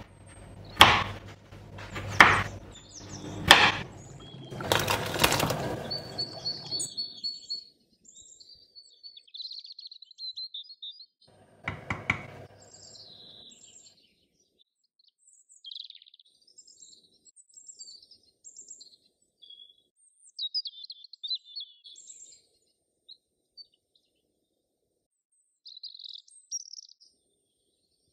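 Hard lumps of jaggery being struck and crushed on a wooden cutting board: four or five heavy knocks about a second apart over the first six seconds. After that, birds chirp sparsely, with one short noisy sound about halfway through.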